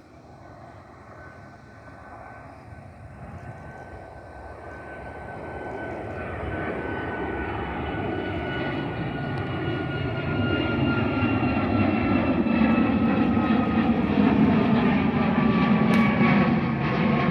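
Jet airliner's engines at takeoff power, growing steadily louder as the plane comes closer, with a whining fan tone that slowly falls in pitch.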